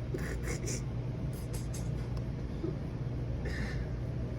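A steady low hum with a few short, soft breathy or rustling noises: one near the start, one about a second and a half in, and one about three and a half seconds in.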